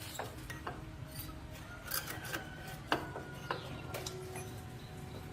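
Scattered metallic clinks and knocks from hand tools worked on metal parts, a few leaving a brief ring, over a low steady hum.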